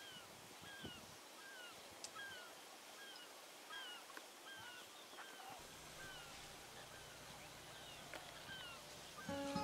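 Faint bird calls: a short down-slurred note repeated about twice a second. A low steady hum comes in about halfway through.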